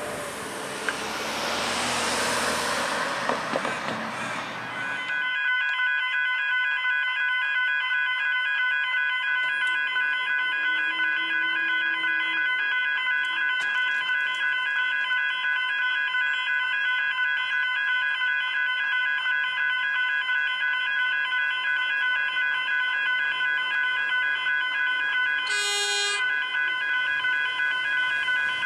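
Railway level-crossing warning bells ringing in a fast, steady pulsing rhythm, starting about five seconds in after a broad rushing noise, as an electric suburban train approaches the crossing. Near the end a short, high toot sounds once, the train's horn.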